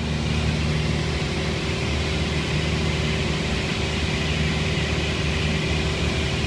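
Light airplane's piston engine and propeller running steadily in flight, heard inside the cockpit as an even low hum under constant cabin and wind hiss.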